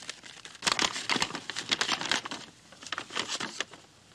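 A folded paper letter being handled and unfolded, its stiff paper crackling and rustling in two spells: a longer one from about half a second in, and a shorter one about three seconds in.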